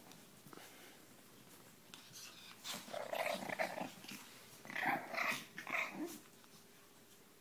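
Shih Tzu puppies growling in play, in two bouts of short growls: one about three seconds in and another about five seconds in.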